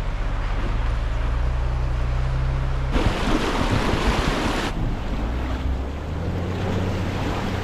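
Vehicle engine running steadily as it drives into a shallow water crossing. About three seconds in, water splashes and rushes loudly against the vehicle for under two seconds, and then the engine is heard running on.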